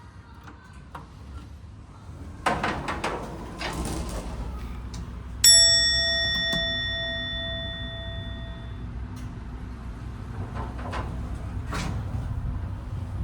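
Hitachi passenger elevator: a clattering of the sliding doors, then a single chime that rings out and dies away over about three seconds, over the low steady hum of the elevator car, with a few more rattles near the end.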